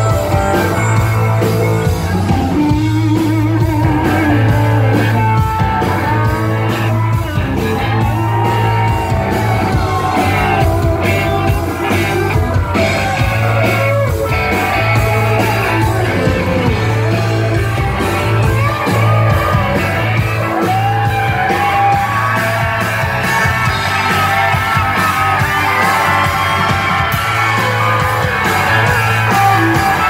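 Live rock band at full volume: electric guitar over drums and bass, with a man singing and shouting into the microphone.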